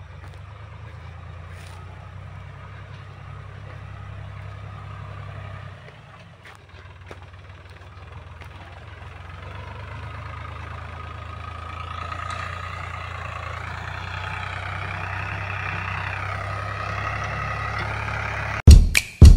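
YTO-X454 tractor's diesel engine running steadily while pulling a trailing harrow, with a higher, wavering whine over it in the second half. Loud drum-beat music starts abruptly near the end.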